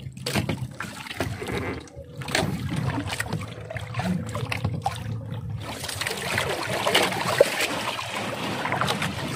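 Seawater splashing and trickling alongside a small bamboo-outrigger fishing boat as a gill net is worked over the side, with scattered sharp knocks and clatter throughout.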